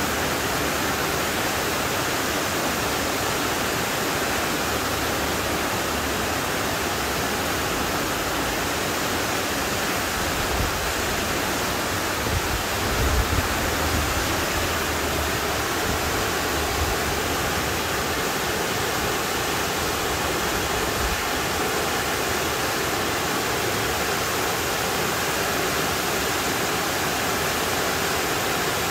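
Shequaga Falls waterfall rushing steadily, a constant full hiss of falling water, with a brief low rumble about halfway through.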